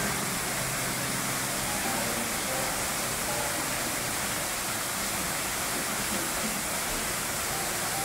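Steady rushing of a waterfall, water falling onto rock, with soft sustained notes of background music underneath.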